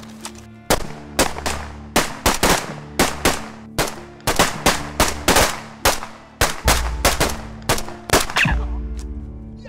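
Rifle gunfire in a firefight: a rapid, irregular string of sharp shots, about three a second, each with a short echoing tail. The firing stops about eight and a half seconds in.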